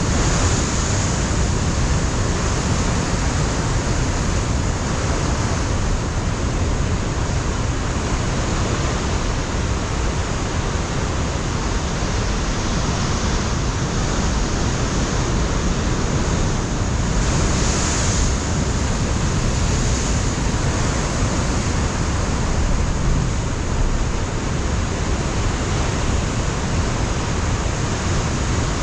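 Ocean surf breaking against a rocky coastline, a steady, dense roar with slight swells as waves break, with wind buffeting the microphone.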